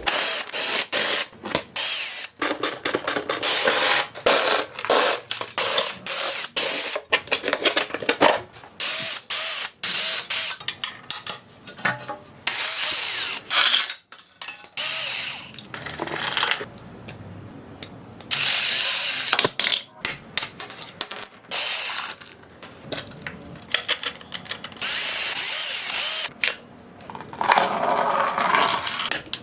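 Hand and power tools dismantling a dirt bike: a power driver running in short bursts, ratchet wrench clicking, and metal parts knocking and clattering.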